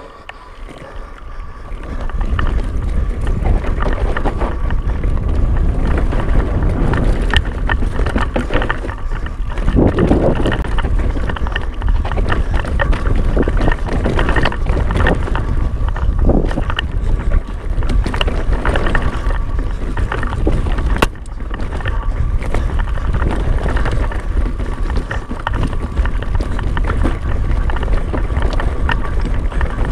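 Wind buffeting the camera microphone over the rumble and rattle of a mountain bike descending a rocky dirt singletrack, with frequent knocks as the tyres hit rocks and roots. The noise picks up about two seconds in as the bike gathers speed.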